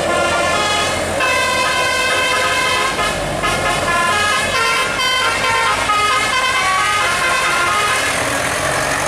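Bus telolet horn of the Basuri type playing a melody: a quick run of stepped multi-tone notes with short breaks, stopping near the end.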